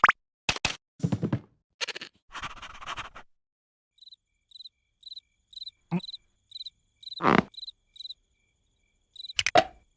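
Cartoon sound effects: a quick run of short pops and swishes, then a cricket chirping steadily about twice a second, broken by a few brief effects.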